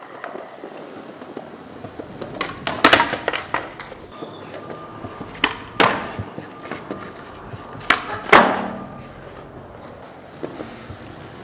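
Skateboard rolling on smooth concrete, broken by sharp clacks of the tail popping and the board landing, loudest about three, six and eight seconds in.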